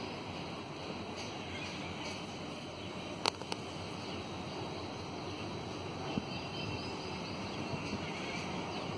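Steady outdoor background noise with one sharp click a little over three seconds in.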